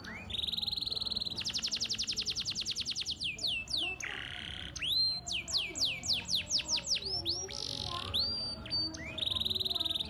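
Canary singing a long, varied song. It opens with a rolling trill, then a fast run of rapid repeated notes, then series of falling whistled notes broken by two harsh buzzy notes, and ends with another rolling trill.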